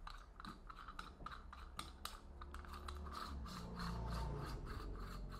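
Threaded flange being unscrewed by hand from the bulb housing of an IKEA Not lamp, giving a faint run of quick, irregular scratching clicks from the turning threads and the hands on the housing.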